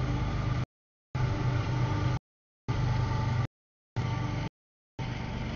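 CSX freight train rolling past a grade crossing: a steady drone with a low rumble, cut by about four brief dropouts of dead silence in the audio.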